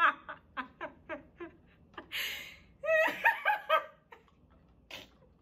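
A woman laughing hard: a quick run of 'ha-ha' bursts that fade, a sharp gasping breath about two seconds in, then a burst of high squealing laughs that dies away about four seconds in.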